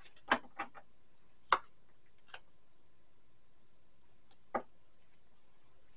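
Thin plastic tarot cards being handled and set down, giving about half a dozen light, irregular clicks and taps; the sharpest comes about a second and a half in.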